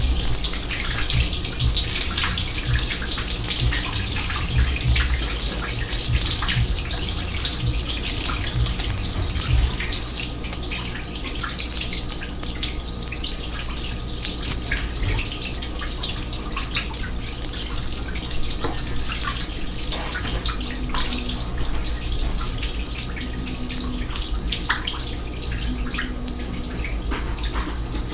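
Water running steadily and splashing in a kitchen sink.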